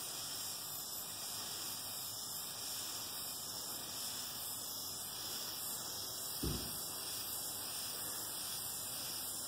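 Aerosol spray paint can hissing steadily as paint is sprayed, with a brief low thump about six and a half seconds in.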